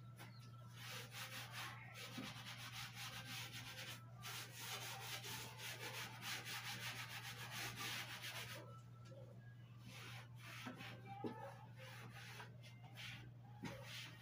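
A kitchen sponge scrubbed hard and fast back and forth over a shelf. The rubbing is dense and steady for the first half, then turns lighter and patchier after about eight seconds, with a few small knocks against the shelf.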